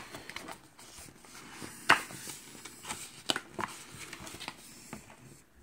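Hands handling and turning over a metal Blu-ray steelbook case: scattered light clicks and taps, the sharpest about two seconds in.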